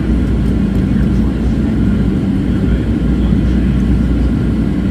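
Steady low roar of a Boeing 737-700 heard from inside the passenger cabin in flight: CFM56-7B engine noise and airflow, with a steady low hum running under it.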